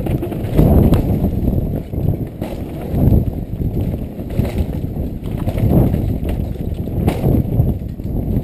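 Downhill mountain bike descending a rough dirt trail at speed: heavy wind rumble on the microphone, uneven and surging, with the rattle and a few sharp knocks of the bike over bumps and roots.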